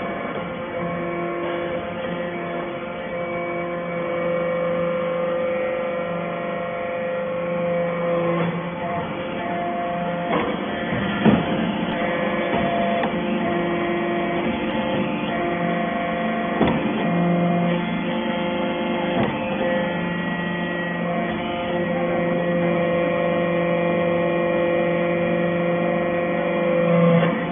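Hydraulic metal shaving baler running: a steady machine hum from its pump and motor that swells and eases in stretches, with a few sharp knocks.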